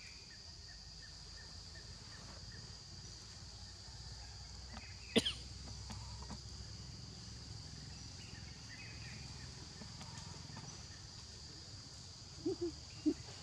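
Steady high-pitched insect drone, with a sharp click about five seconds in and a few short soft sounds near the end.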